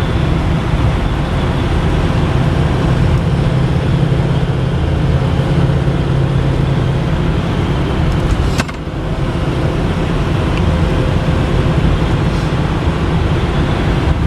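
Cab interior of a 2010 Ford F-450 truck cruising steadily at about 60 mph: a continuous low engine and drivetrain drone with tyre and road noise. A single sharp click comes about two-thirds of the way through.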